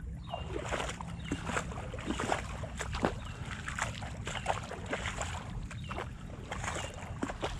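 Shallow river water sloshing and splashing irregularly around legs wading through it, over a low rumble. A bird repeats a short falling chirp every second or two.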